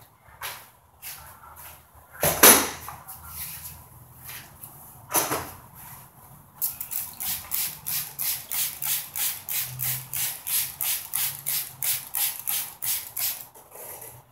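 Trigger spray bottle squirted over and over, about four sprays a second from about seven seconds in, wetting the popcorn ceiling texture so it will soak and scrape off. Before that, two sharp knocks about two and five seconds in.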